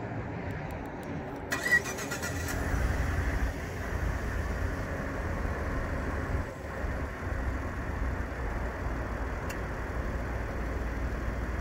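Ford F-150's 3.5-litre EcoBoost twin-turbo V6 starting about a second and a half in, then idling steadily.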